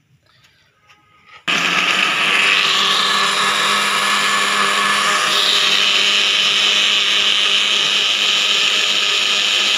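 Electric kitchen blender starting suddenly about a second and a half in and running loud and steady, grinding a wet mixture of onions, green chillies, tomato and yogurt into a paste; its pitch rises slightly a second or so after starting and shifts again near the middle.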